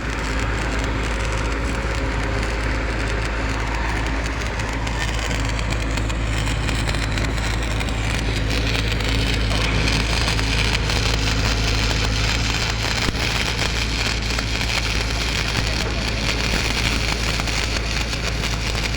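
Electric arc welding: a continuous crackling, sputtering arc with no breaks, over a steady low hum.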